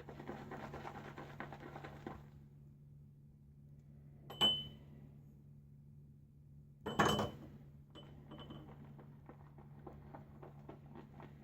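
Badger-hair shaving brush swirling and whipping soft shaving-soap lather in a bowl, a fine wet crackle, while the lather is being built. Two sharp clinks with a brief ring, about four and a half and about seven seconds in, as the brush knocks against the bowl.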